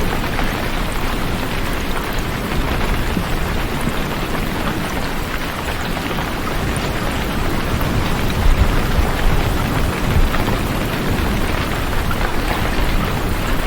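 Heavy rain falling steadily, an even hiss with a deep low rumble underneath.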